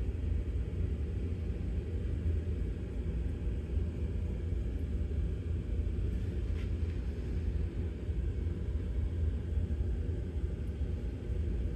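A steady low rumble with no distinct events, and a faint short tick about two-thirds of the way through.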